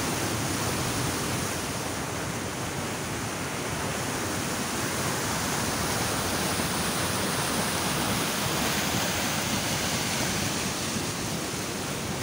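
Water pouring over a low weir and churning below it: a steady, even rushing noise.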